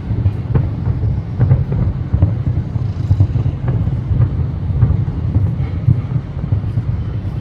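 Steady low rumble of wind buffeting the microphone, with faint short clicks scattered through it.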